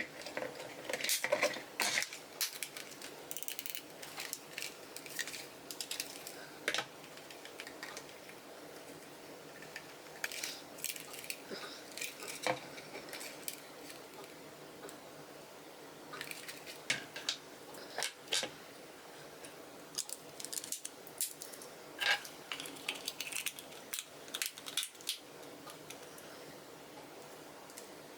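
Irregular clicks, taps and light clatter of small hard plastic and metal parts being handled and set down while a cordless stick vacuum is taken apart, in scattered clusters.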